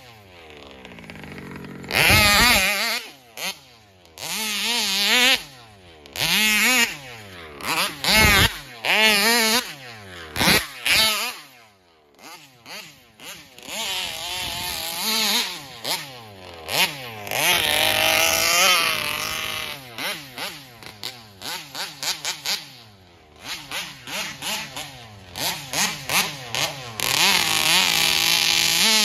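Two-stroke gas engine of a Taylor RC 71 Supreme RC car revving in repeated bursts, its pitch rising and falling with the throttle. There is a longer run near the middle and a string of quick throttle blips near the end.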